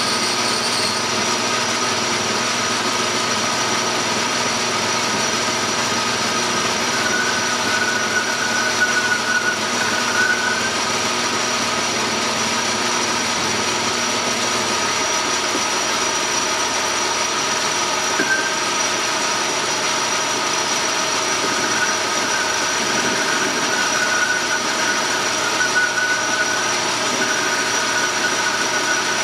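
Metal lathe running steadily while a parting tool cuts into a thin, unsupported piece of metal. A high, wavering squeal from the cut comes and goes, once about a quarter of the way in and again through the last third.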